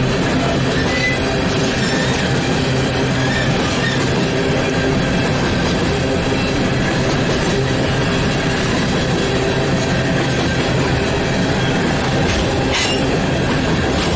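Coal train's open-top steel cars rolling steadily past at close range: continuous rumble and rattle of steel wheels on the rails, with a brief high-pitched squeal near the end.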